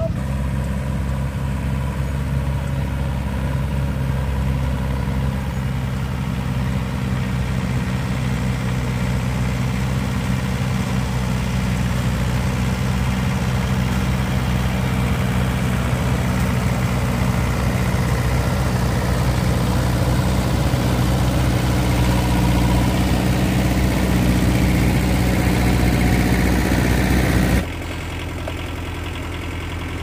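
Small four-wheel tractor's diesel engine idling steadily, slowly getting a little louder. Near the end the sound drops abruptly to a quieter, lower engine hum.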